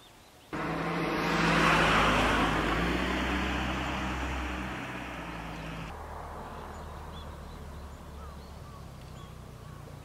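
A car passing close by. Its tyre and engine noise comes in suddenly, peaks about a second later, then slowly fades away. After a cut near the middle, only faint outdoor ambience remains.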